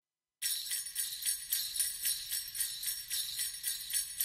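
Sleigh bells jingling in a steady shaken rhythm, about four shakes a second, starting about half a second in.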